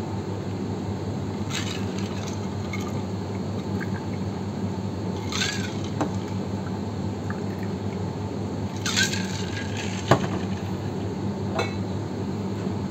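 A stainless steel cocktail shaker being poured into glass shot glasses, with short pouring swishes and a few sharp metal-on-glass clinks, the loudest about ten seconds in. A steady low hum runs underneath.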